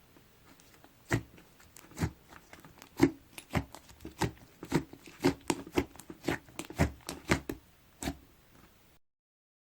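Mint ice-cream slime with clay mixed in being pressed and kneaded by hand. It gives sharp, irregular pops and clicks, about two or three a second, starting about a second in.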